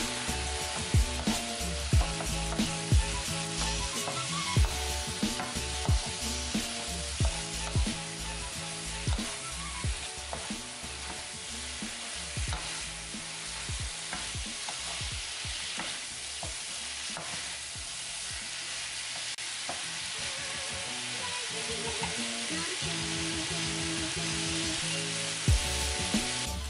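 Green beans and bell peppers sizzling in a hot nonstick wok while a wooden spatula stirs them, with the spatula scraping and clicking against the pan. The clicks come often in the first half, thin out in the middle and pick up again near the end, over a steady frying hiss.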